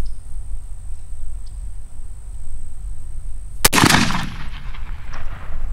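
A single shot from a 20-gauge semi-automatic turkey shotgun firing a 3-inch, 1 5/8 oz #9 TSS load, about three and a half seconds in, with a short echo trailing off after the blast.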